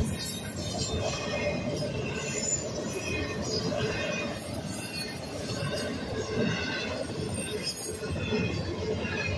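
Union Pacific double-stack intermodal train's container cars rolling past on the rails: a steady rumble and clatter of wheels on track, with some high-pitched wheel squeal.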